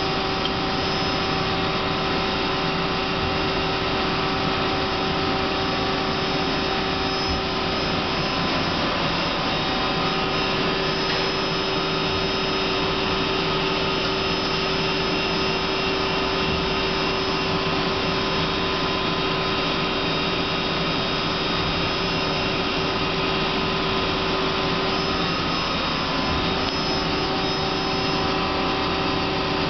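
Hardinge Quest 10/65SP CNC turning center running a program under power: a steady mechanical hum and whine with several held tones.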